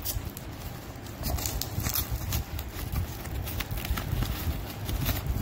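A small cardboard box with a clear plastic wrap being torn open by hand: an irregular run of sharp crackles, rips and crinkles.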